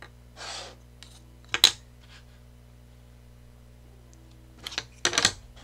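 Tangram pieces being placed and shifted on a tabletop: a short scrape about half a second in, a sharp double click, the loudest sound here, then a few more clicks near the end.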